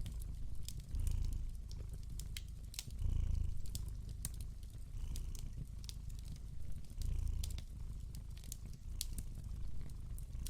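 A cat purring, the low rumble swelling about every two seconds with its breathing, over a crackling fire with scattered sharp pops.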